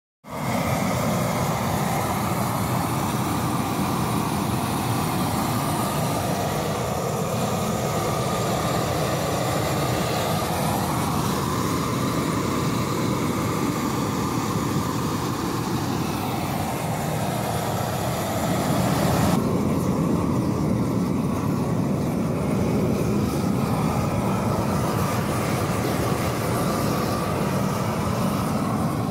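Two propane Tiger Torch burners firing into a large steel pipe to heat an anvil for hardening: a steady rush of burning gas. About two-thirds of the way through, the hiss at the top suddenly drops away, leaving a duller steady rush.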